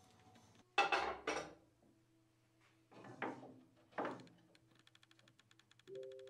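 Steel F-clamps and an ash workpiece being handled and fitted into a plywood jig: a quick cluster of knocks about a second in, two more single knocks later, then a clamp's metal bar ringing briefly near the end.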